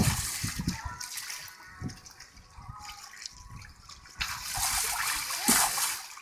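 Water sloshing and splashing around an inflatable water-walking ball as a child inside rolls it across a shallow pool. The splashing grows louder from about four seconds in.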